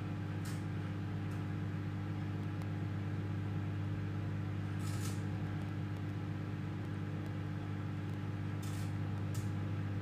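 Microwave oven running with a steady electrical hum, while thin aluminium foil arcs inside it, giving a few short sharp crackles scattered through, two of them close together near the end.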